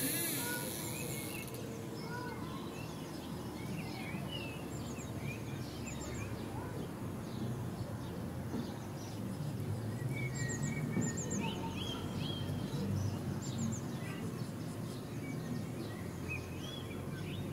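Outdoor garden ambience: small songbirds chirping and calling on and off over a steady low background rumble.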